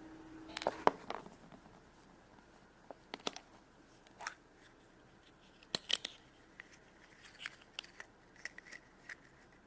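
Scattered clicks, taps and short crinkles of small plastic toys and packaging being handled, the loudest cluster about a second in.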